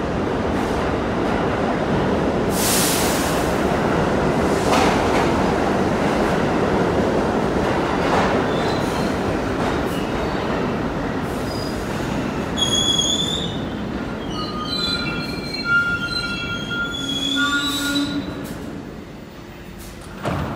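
R68 subway train running on the rails with a loud, steady rushing noise. From about halfway through, several high metallic squealing tones come and go, and the sound dies down near the end.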